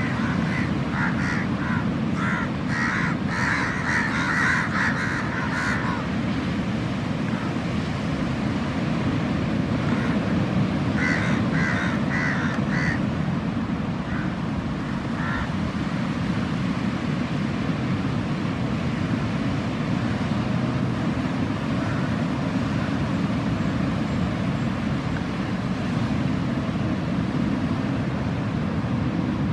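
Steady low rush of sea surf and wind on the shore. Over it come runs of short, harsh calls repeated several times, thickest in the first six seconds and again about eleven to thirteen seconds in.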